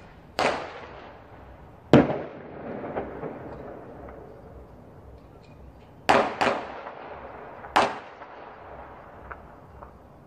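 Firecracker bangs with echoing tails: one about half a second in, one at about two seconds, two in quick succession around six seconds and one near eight seconds, with a few fainter, more distant pops between them.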